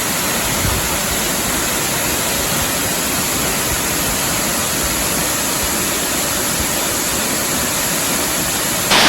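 A waterfall's steady rush of falling water: an even hiss with no breaks or changes in level.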